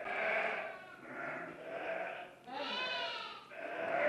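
Lambs bleating, several calls one after another, with one long quavering bleat about two and a half seconds in.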